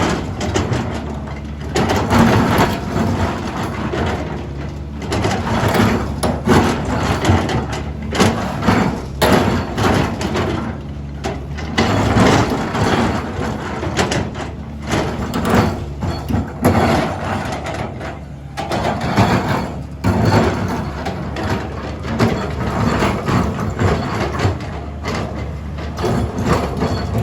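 Caterpillar 320D hydraulic excavator at work on rock: its diesel engine runs under load while the steel bucket teeth scrape, grind and knock against the rock in irregular strokes.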